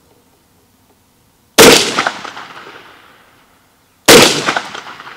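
Two 9mm shots from a CZ Scorpion, about two and a half seconds apart, each followed by a long echo that fades over about two seconds.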